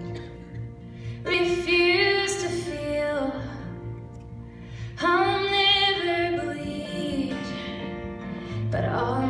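A woman singing a slow song in long phrases, with short breaks between them, over steady held accompaniment notes.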